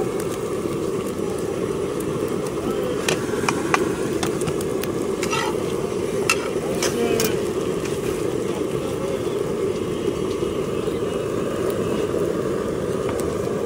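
Bread omelette frying in a flat iron pan over a stove, a knife and spatula clicking and scraping against the metal several times between about three and seven seconds in, over a steady low roar.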